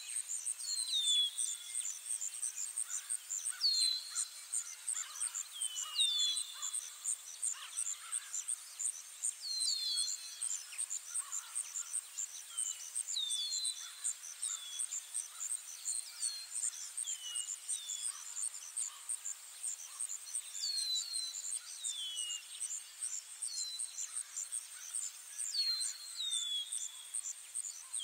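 Countryside ambience: a steady, rapidly pulsing high insect chirr, with short falling bird whistles every second or two.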